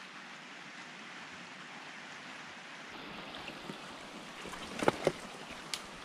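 Shallow rocky stream running steadily, with a few short knocks and scuffs of footsteps on creek stones about five seconds in.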